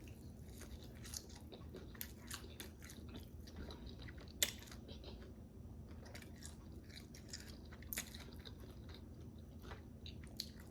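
Close-up chewing of crispy fried chicken wings: a string of soft crunches and crackles, with a sharper crunch about four seconds in and another near eight seconds.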